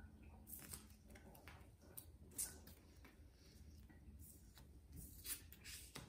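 Faint handling sounds of game cards being turned face up and set down on a wooden table: a scattering of soft taps and clicks, the clearest about two and a half seconds in.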